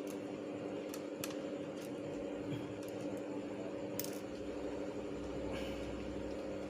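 A few sharp, small clicks and taps from parts being handled and fitted inside an open laptop, over a steady electrical hum.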